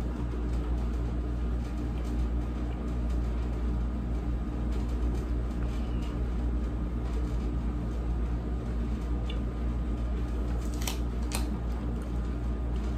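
Steady low hum of room noise, an even drone with no rhythm, with a couple of faint short clicks near the end.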